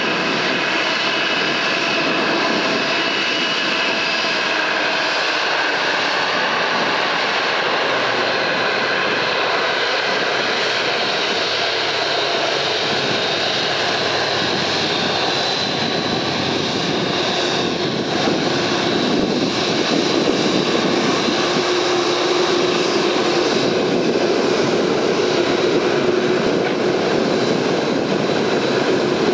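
Boeing 747-8F's four GEnx-2B67 turbofans at low taxi power: a steady jet whine with several high tones over a broad rushing noise, growing a little louder about 18 seconds in as the freighter rolls closer.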